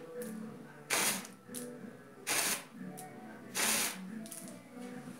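Air and water spurting out of a plastic electrical conduit set in a concrete floor slab, in three short bursts about a second and a half apart, as the duct is blown through to drive out rainwater that got in past deteriorated electrical tape.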